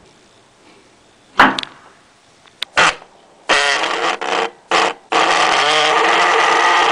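A small lit charge goes off with one sharp bang, followed by a couple of small pops. From about halfway on, a high-voltage spark gap arcs between two metal electrodes with a loud crackling buzz, first in short bursts and then without a break.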